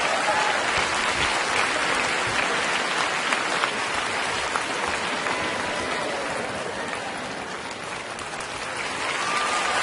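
Theatre audience applauding steadily, easing off a little and then picking up again near the end.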